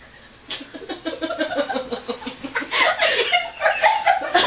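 Women laughing: giggles start about half a second in and grow into louder, fuller laughter from about two and a half seconds in.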